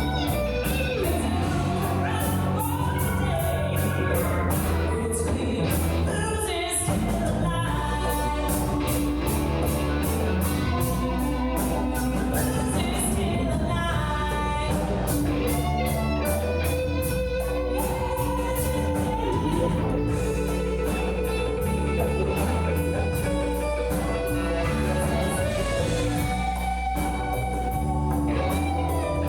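Live band playing a song: a sung vocal line over electric guitar, bass and drums keeping a steady beat.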